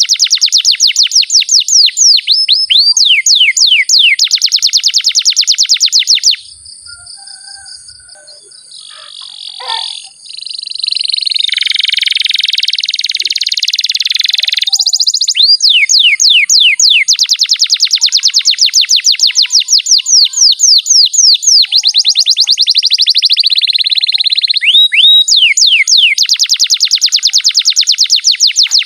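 Domestic canary singing a long rolling song of rapid, fast-repeated trill notes. The song drops to a softer twitter about a quarter of the way in, then returns with a dense buzzy roll and more rapid trills.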